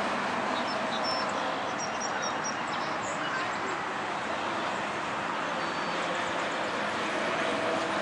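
Steady outdoor background noise with faint distant voices, and a few short high chirps between about one and two and a half seconds in.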